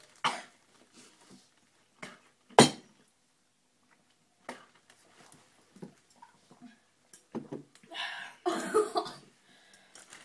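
Coughing and sputtering on a spoonful of dry ground cinnamon: a sharp single cough about two and a half seconds in, scattered smaller coughs, and a run of coughing and throat noises near the end.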